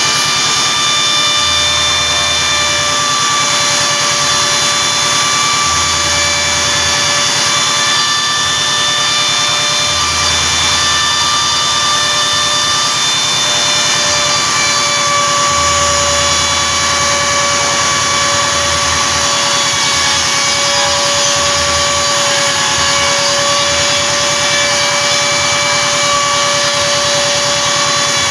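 CNC router spindle running at speed with a steady high whine while its end mill engraves and cuts the sheet, with the hiss of cutting underneath. A low hum from the machine comes and goes every few seconds as the head moves.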